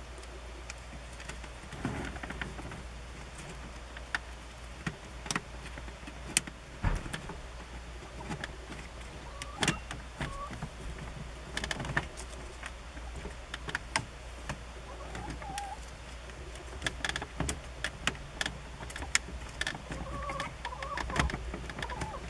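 Scattered small clicks and taps of fingers working plastic parts on the back of a truck's instrument cluster, over a steady low hum. A few faint bird chirps come in now and then, mostly in the second half.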